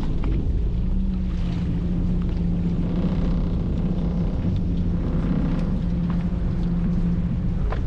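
A fishing boat's engine running with a steady low hum, over wind and water noise. There is a sharp click near the end.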